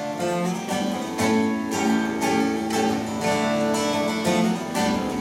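Acoustic guitar strummed in an instrumental passage, chords ringing, about two strokes a second.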